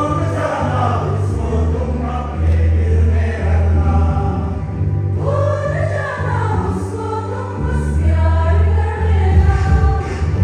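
A church congregation of men and women singing a hymn together in chorus, over a steady deep bass accompaniment.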